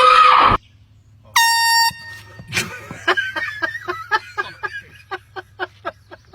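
Handheld air horn blasting: one loud blast cuts off about half a second in, and a second, shorter and higher-pitched blast follows about a second later. Then comes a rapid run of short pulses, about four a second.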